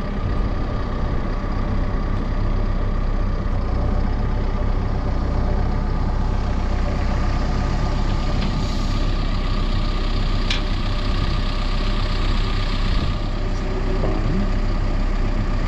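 Caterpillar 420F2 backhoe loader's four-cylinder diesel engine running steadily while the backhoe arm works, with one sharp click about ten and a half seconds in.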